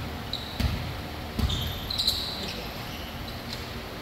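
A ball bouncing on the gym floor three times in the first two seconds, with sneakers squeaking briefly on the court.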